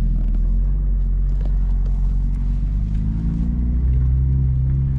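BMW M2's turbocharged straight-six engine, heard from inside the cabin, running at low revs with a deep hum; about three seconds in the revs rise gently and then hold steady.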